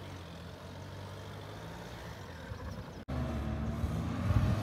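Mahindra Thar SUV's engine running steadily across sand, heard from a distance; the engine note is louder after about three seconds.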